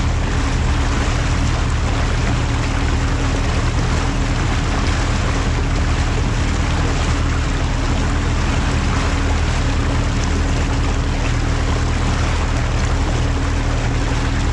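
Outboard motor running at a steady cruising speed, a constant engine hum under the rush of water along the hull and wake.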